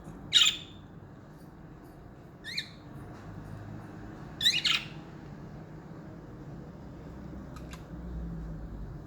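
Pet budgerigars calling in short, sharp squawks: a loud one just after the start, a shorter one about two and a half seconds in, and a loud double call around four and a half seconds in. A faint click follows near the end.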